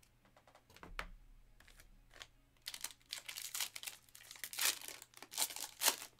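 A Donruss basketball hobby pack's foil wrapper being torn open and crinkled in the hands, in dense crackling bursts from a little under three seconds in. Before it come a few light clicks.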